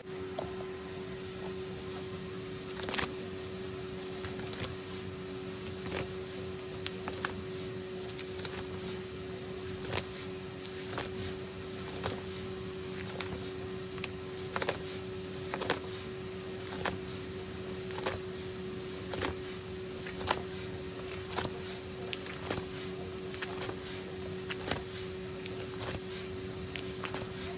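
Clear plastic sleeve pages of a ring-binder photocard album being handled and turned, giving short crinkly clicks about once a second over a steady low hum.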